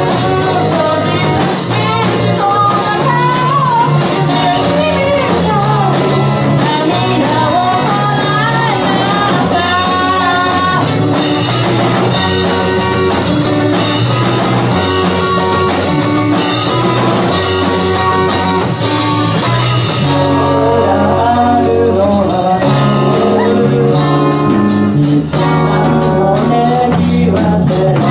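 A live rock band plays loud on electric guitars and a drum kit, with a wavering lead melody sliding in pitch over the top. About twenty seconds in the cymbals drop away briefly. Then a steady hi-hat ticks at about four strokes a second.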